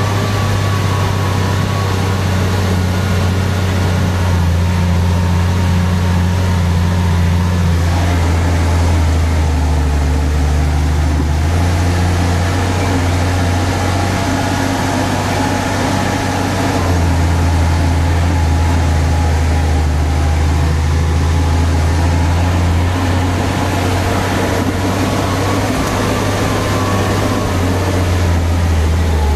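Massey Ferguson 6190 tractor's six-cylinder diesel engine running steadily, heard from inside the cab. Its deep hum shifts in pitch a few times as the engine speed or load changes.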